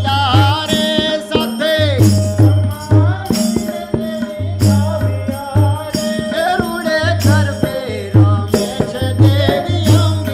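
Gujarati garba folk song: a man singing over tabla, whose bass drum sounds in regular low strokes, with the rattle and clack of wooden kartal clappers keeping the beat.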